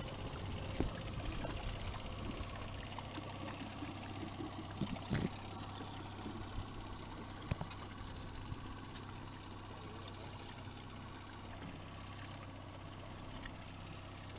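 Boat outboard motor idling steadily at trolling speed, with a few short knocks about one, five and seven seconds in.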